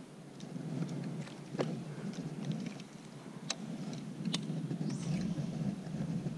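Low steady rumble of wind on the microphone, with three sharp clicks from a baitcasting rod and reel being handled and cast, and a short high hiss as the cast goes out near the end.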